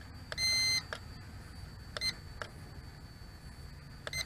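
Handheld drone transmitter beeping as its camera-tilt button is pressed: a clear beep about half a second long near the start, then short beeps about two seconds in and near the end, with soft button clicks between.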